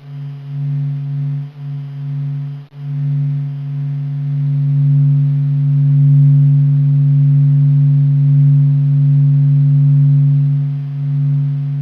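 Spacecraft space-sound recording played as audio: a steady low droning hum with a few fainter higher overtones, dipping briefly a few times at first and then holding steady.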